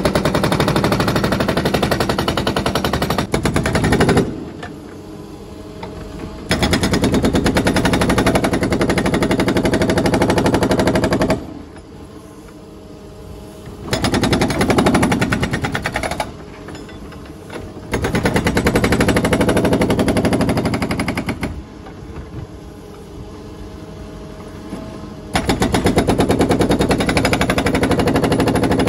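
Hydraulic hammer on a Menzi Muck M545x walking excavator breaking concrete: rapid blows in several runs of a few seconds each. Between the runs, the excavator's engine runs at a lower level.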